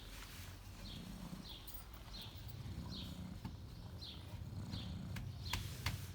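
A small bird chirping over and over, one short high call about every two-thirds of a second, with a few sharp clicks near the end.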